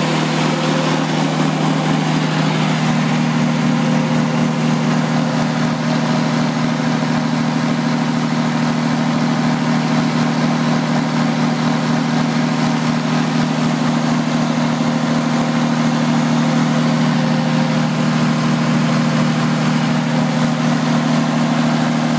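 Six-cylinder diesel engine of a Volvo 135 kVA three-phase generator set running steadily at constant speed, heard close up.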